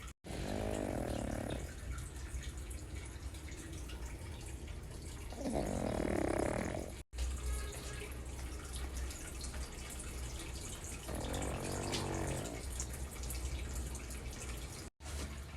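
A pug snoring in its sleep: three drawn-out, pitched snores about five seconds apart.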